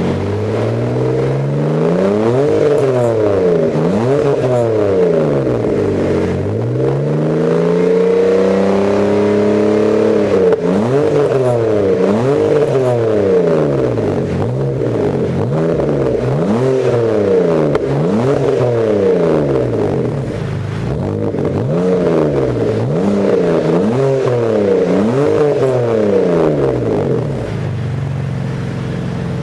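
BMW E60 530i's 3.0-litre straight-six being revved repeatedly through an aftermarket dual exhaust with quad tips. First come a few quick blips, then one longer rev held high about a third of the way in, then a run of quick blips about once a second, before it drops back to idle near the end.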